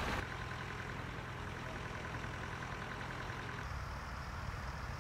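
A tractor's diesel engine running steadily, a low even hum.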